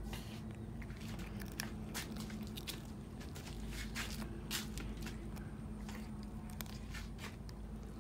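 A cat chewing chicken on the bone: irregular wet crunches and sharp clicks of teeth on meat and bone, several a second at times. A steady low hum runs beneath.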